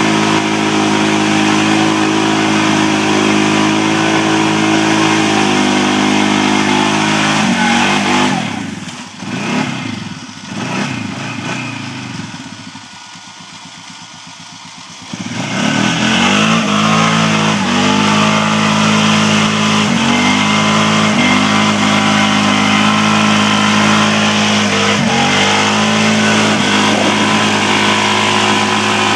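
Polaris Sportsman 500 HO ATV's single-cylinder engine revving hard as the quad churns through deep mud. About eight seconds in the revs drop away and it runs low and much quieter for several seconds. Around fifteen seconds in it revs back up sharply and holds high revs to the end.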